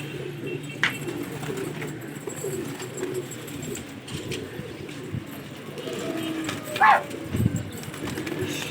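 Many domestic pigeons cooing at once, a continuous overlapping low cooing, with one brief sharp higher call about seven seconds in.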